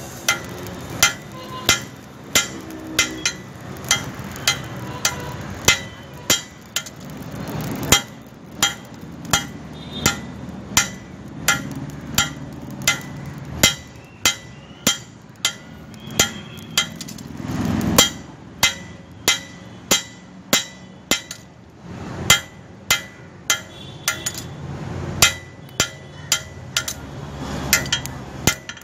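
Blacksmith's hammer striking steel bar stock on an anvil while forging tongs, a steady run of sharp metallic blows at about two a second with a short ring after each.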